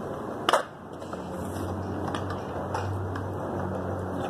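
A single sharp knock about half a second in, followed by a steady low hum with a few faint ticks.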